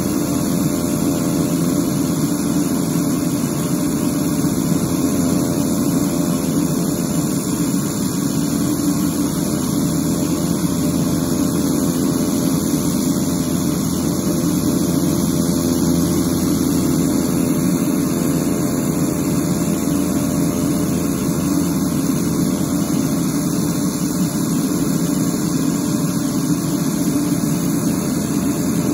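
Medical aircraft's engines running steadily on the ground ahead of takeoff: a constant engine hum with several steady tones and no change in pitch.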